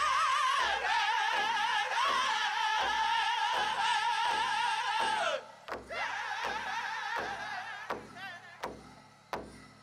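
Pow wow drum group singing in high, wavering voices over a steady beat on a big drum, about one beat every three-quarters of a second. The loud singing breaks off about five seconds in, and the drumbeats go on more softly under fainter voices.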